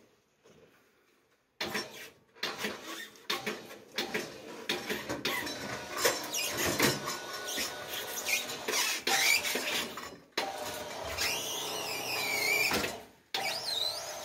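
A tracked stair-climbing machine carrying a seated person down stairs, its tracks and frame clattering and squeaking over the step edges, starting about a second and a half in. Near the end there is a high wavering squeal.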